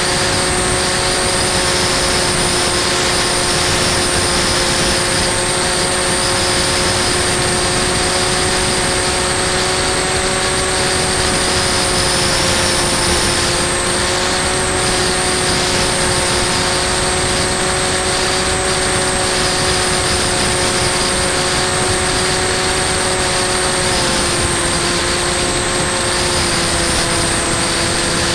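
Electric motor and propeller of a Bixler 2 foam RC plane heard from its onboard camera in flight: a steady whine over a constant hiss of rushing air and wind. The whine dips slightly in pitch twice, the second time near the end.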